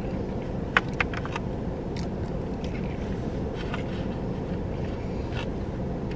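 Steady low rumble of a car running while parked, heard inside the cabin, with two sharp clicks about a second in and a few fainter handling and eating noises.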